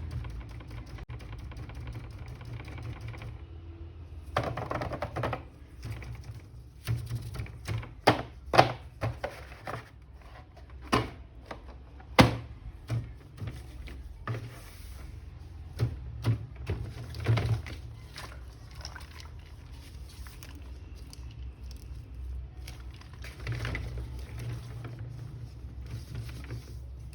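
Hands handling plastic toy packaging and action figures: irregular clicks, taps and knocks, with a couple of short rustles of packaging, over a steady low hum.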